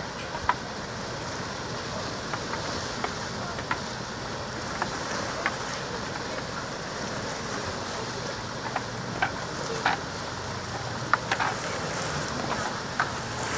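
Sea washing against a rocky shore, a steady rush mixed with wind on the microphone, with scattered short, sharp knocks through it.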